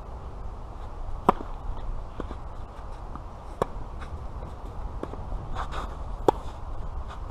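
Tennis ball struck by rackets during a rally: three sharp pops a little over two seconds apart, the last one the near player's forehand. Fainter ticks fall between the hits.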